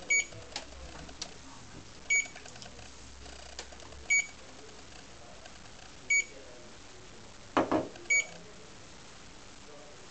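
SmartWitness SVC100GPS dash camera giving a short, high electronic beep every two seconds, five times in a row.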